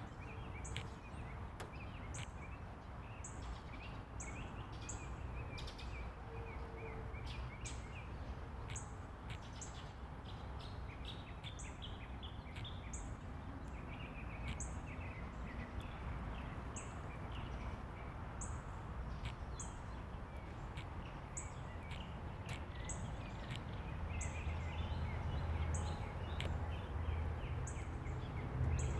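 Northern mockingbird song: a short high chirp repeated roughly once a second, with varied lower phrases between. Under it runs a steady background hiss and a low rumble that grows louder near the end.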